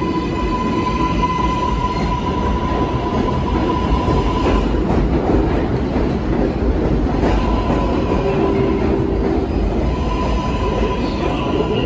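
New York City subway 4 train pulling out of the station along the platform: a steady loud rumble of wheels on rail, with a steady high whine that drops out for a couple of seconds midway.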